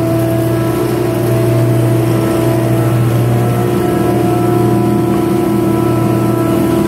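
Grizzly 20-inch planer and a dust collector running together: a loud, steady motor hum with several constant tones.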